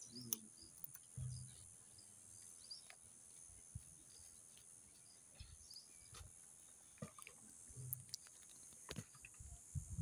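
Faint outdoor ambience: a steady high insect drone, with a few faint short chirps, clicks and soft low thumps scattered through.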